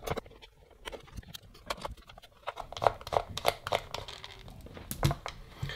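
Small hand screwdriver turning Torx screws out of a plastic cordless-drill battery case: irregular small clicks and creaks of plastic and metal, louder from about three seconds in, with a sharper click near the end.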